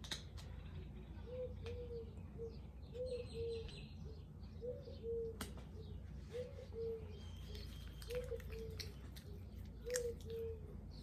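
A bird repeating a low two-note call over and over, about every one and a half to two seconds, while small birds chirp faintly higher up. A few sharp clicks, one louder near the end.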